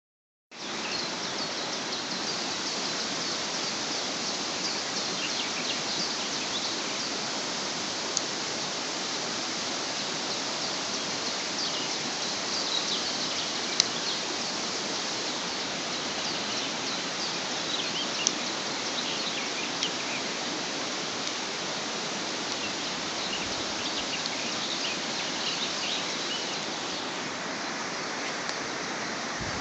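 Outdoor natural ambience: a steady rushing noise with scattered short bird chirps throughout and a few single sharp clicks.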